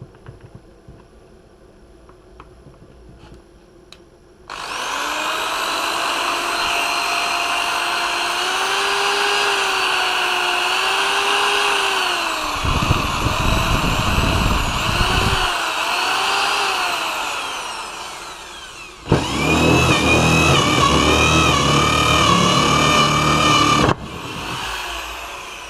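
Bosch corded electric drill on a test run after new carbon brushes and a new power cord: after a few small clicks the motor starts about four seconds in and whines, its pitch rising and falling as the trigger speed changes. It runs a second time from about nineteen seconds, then cuts off and winds down near the end.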